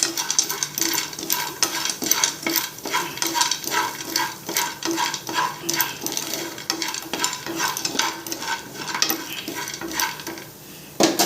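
A spoon stirring and scraping in a pan while ingredients are dry-roasted: a quick, irregular run of scrapes and light knocks, with one louder knock near the end.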